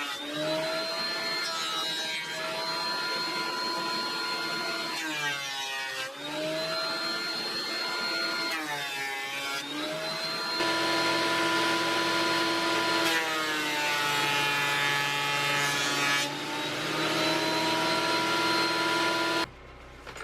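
Thickness planer with a brushed motor running, its whine dipping in pitch several times as slabs feed through the cutterhead. It gets louder about halfway through, then shuts off suddenly near the end.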